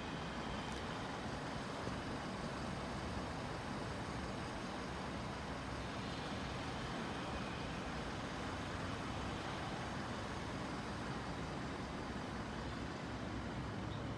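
Steady hum of road traffic on a city street, with no single vehicle standing out.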